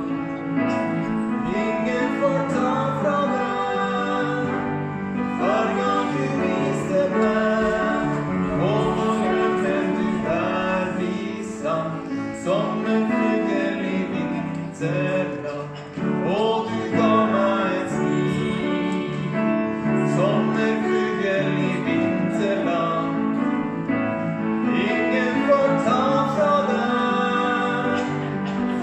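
A song performed live: a man singing a slow ballad to piano accompaniment.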